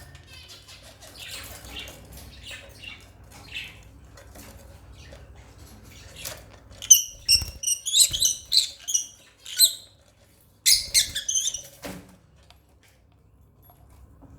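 African lovebirds chirping: faint twittering at first, then a run of loud, shrill chirps about halfway through and another short burst a second later.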